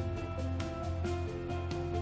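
Background music: sustained instrumental notes over a steady bass line with a regular beat.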